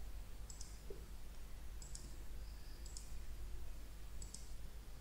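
Computer mouse clicking four times, each click a quick pair of ticks as the button is pressed and released, over a low steady hum.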